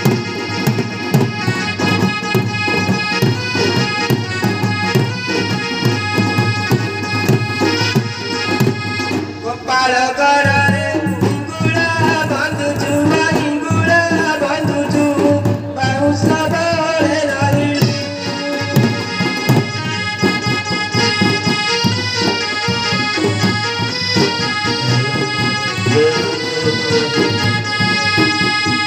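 Live Danda Nacha folk music: sustained reed chords, harmonium-like, over steady barrel-drum (dhol) beats. A voice sings for several seconds in the middle.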